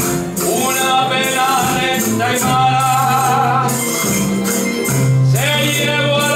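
Canarian parranda folk music: a band playing with a tambourine shaking in time and a long, wavering held melody line over bass notes.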